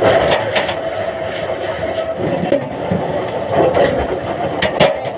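Timber-mill log-handling machinery running with a steady mechanical hum, with hard knocks and clatter from the logs. The sharpest knock comes near the end.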